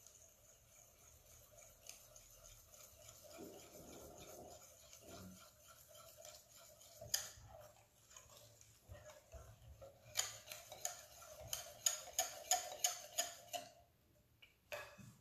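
Wire whisk beating a thin crêpe batter in a glass bowl: faint rapid ticking of the wires, then from about ten seconds in a run of sharper clinks of the whisk against the glass, about three a second, which stops shortly before the end.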